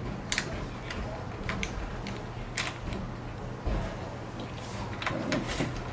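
Scattered short clicks and light knocks of a hex key and plastic and metal parts being handled while a Ninebot Mini scooter is disassembled, over a low steady hum.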